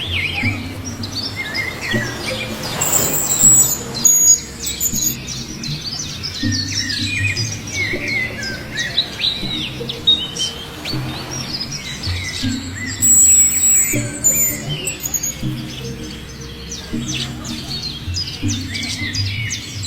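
Pet budgerigars chattering and warbling, a continual run of short chirps and twitters, with music playing underneath.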